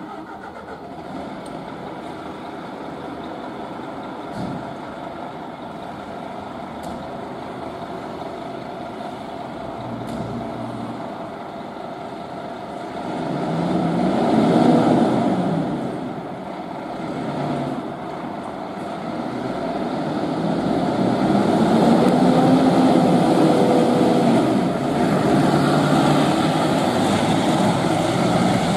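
Scania P280 fire engine's diesel engine running in the station bay, then revving and pulling away. It swells loud about halfway through and builds again toward the end.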